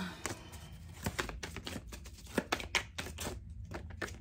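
A tarot deck being shuffled and handled: a run of irregular sharp clicks and taps of cards striking each other and the table.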